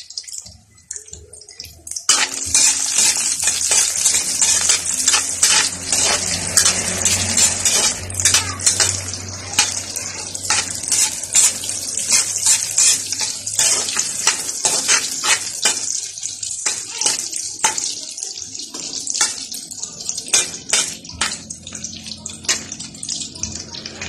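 Garlic sizzling and crackling in hot oil in a wok, starting suddenly about two seconds in, with a metal ladle stirring and scraping against the pan.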